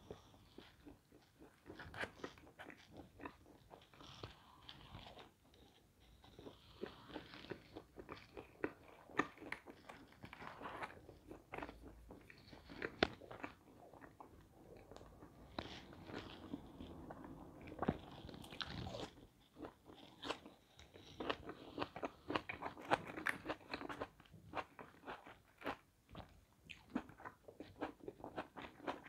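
A person chewing and biting pizza close to a clip-on lapel microphone: many irregular small crunches and wet mouth clicks.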